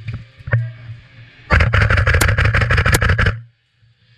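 Airsoft rifle firing: a single shot, then a rapid full-auto burst of just under two seconds at about a dozen shots a second, which cuts off suddenly.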